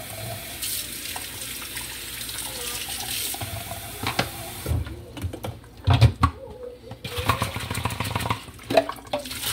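Kitchen tap running into a stainless steel sink as a blender jar is rinsed. About halfway through the flow stops and the jar knocks and clatters against the sink, with a couple of loud knocks, before water runs again more quietly.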